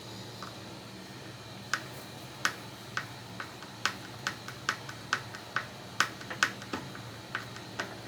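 Phillips screwdriver turned by hand, driving wood screws into a door hinge: a string of short, sharp clicks, unevenly spaced at about two a second, starting a couple of seconds in.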